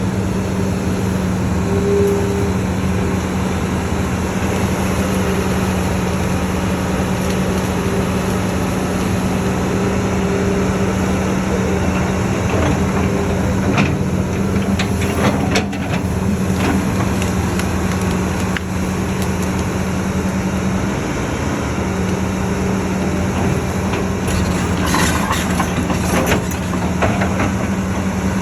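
Excavator's diesel engine running steadily under load while it pushes into forest, with bursts of sharp crackling about halfway through and again near the end, as wood breaks.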